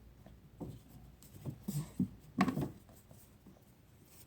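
Soft, scattered knocks and scrapes of toy workbench pieces being handled, with a brief soft voice sound about two and a half seconds in.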